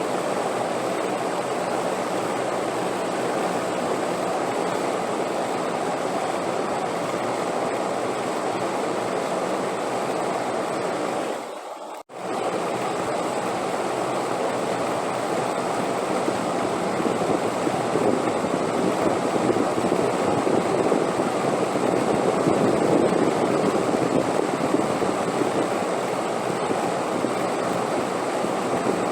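Steady wind noise, a continuous even rush that gusts up a little past the middle. About twelve seconds in it fades out sharply for a moment and comes straight back, like a splice in the recording.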